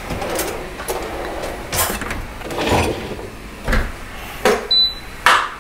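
A kitchen drawer sliding open, followed by a string of irregular knocks and clatters as kitchen things are handled.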